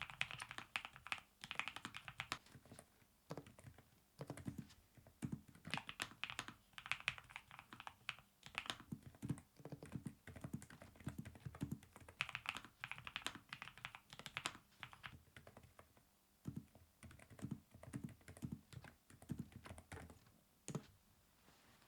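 Typing on a low-profile mechanical keyboard with NuPhy nano switches: quick runs of key clicks in bursts of a few seconds, separated by brief pauses, with a single louder keystroke near the end.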